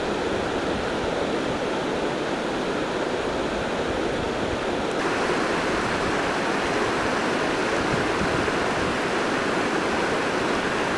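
Steady rushing of a mountain stream flowing over rocks. The sound turns slightly brighter and hissier about halfway through.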